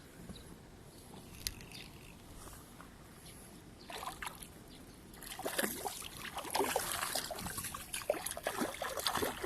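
Water splashing and sloshing in irregular bursts from about five seconds in, the sound of a hooked fish thrashing at the surface.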